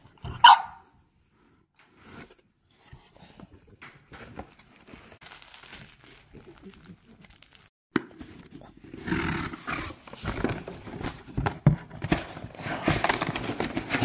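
A French bulldog gives one sharp bark about half a second in. Cardboard rustles and scrapes faintly at first, then louder and denser from about 8 seconds in as the box flaps are handled and opened.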